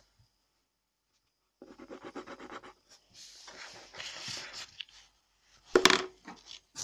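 Scratchy strokes and rubbing against a sheet of drawing paper, then a short, louder sudden sound about six seconds in as the paper is moved.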